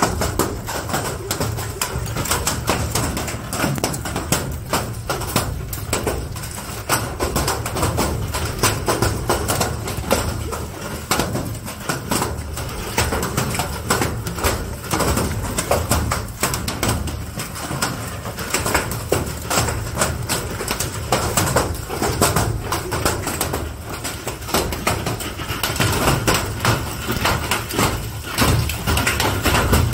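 Heavy rain with hail: hailstones hitting the ground and nearby objects in a dense, unbroken clatter of small impacts.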